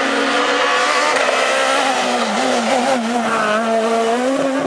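Renault Clio S1600 rally car engine held at high revs, its pitch mostly steady with brief dips about two seconds in and near the end.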